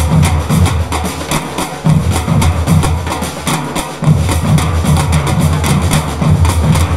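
A batucada samba drum ensemble playing: big surdo bass drums pound out repeated phrases under fast, even, sharp strokes from the higher drums. The bass drums drop out briefly about two and four seconds in.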